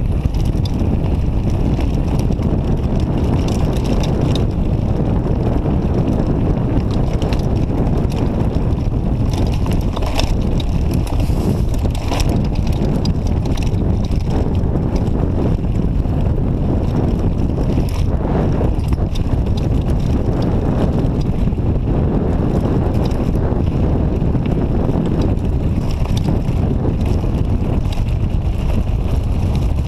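Wind rumbling over the camera microphone as a mountain bike rolls down a gravel double track, with the tyres crunching over stones and frequent short rattles and clicks from the bike.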